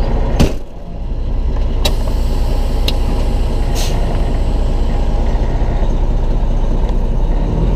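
Semi truck's diesel engine idling steadily, with a sharp knock about half a second in, a couple of lighter clicks and a brief hiss of air about four seconds in.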